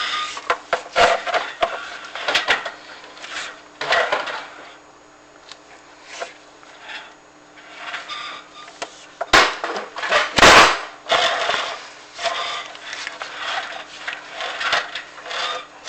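Chimney inspection camera and its cable being fed down a flue, scraping and knocking against the flue walls in irregular clatters, the loudest about nine to eleven seconds in, over a faint steady hum.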